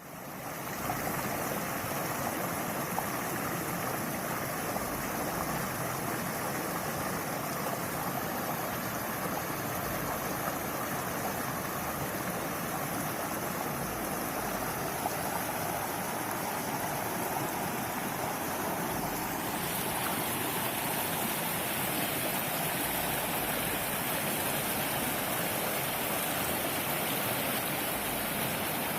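River water flowing with a continuous, steady rush and babble. It fades in at the very start, and the hiss brightens slightly about twenty seconds in.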